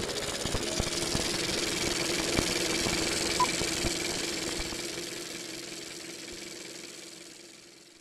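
Sound-design sting for an animated logo intro: a dense, noisy drone with a steady low hum and scattered crackles, fading out gradually over the second half.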